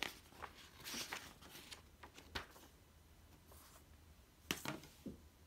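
A model kit's glossy paper instruction manual being handled and flipped, giving soft rustles and page swishes, with a few sharp taps near the end as it is set down in the cardboard box.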